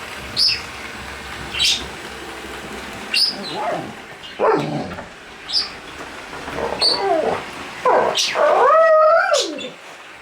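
A dog whining: short high squeaks about every second and a half, and longer whines that rise and fall, the loudest near the end.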